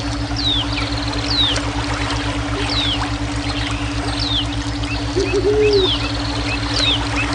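Running water with a bird repeatedly giving a short, high call that slides down in pitch, about once every second or so, with a few short chirps near the end. Underneath are steady, pulsing low hum tones of a brainwave track.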